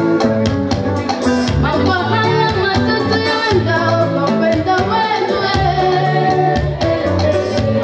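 Upbeat dance music with a singer, a bass line and a steady percussive beat.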